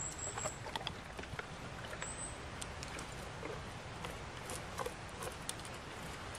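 Light rustling and scattered small ticks of a person moving about and stepping on soft forest ground, with a thin high note twice near the start.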